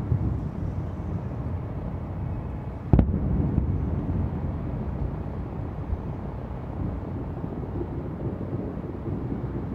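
Aerial fireworks: a steady low rumble of bursts and their echoes, with one sharp bang about three seconds in.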